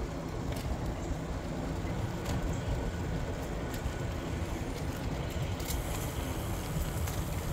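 Riding noise from an Aventon Aventure 2 fat-tire e-bike: wind on the microphone and the tyres rolling make a steady low rumble, with a few faint ticks.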